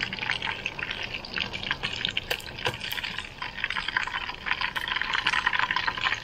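Spanish mackerel frying in hot oil: a steady sizzle with dense crackling.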